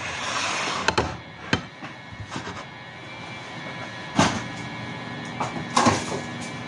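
Kitchen clatter: a few sharp knocks of dishes and trays being handled on a counter, the loudest a little after four seconds in, over a faint steady hum.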